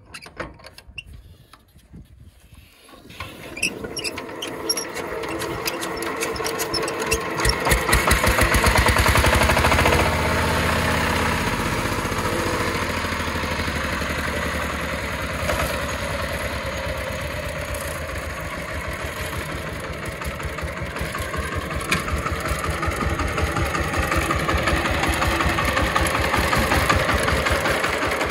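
Single-cylinder diesel engine of a two-wheel power tiller starting: a few light clicks, then about three seconds in it catches and picks up speed, running loudest for a couple of seconds before settling into a steady idle with a fast, regular firing beat.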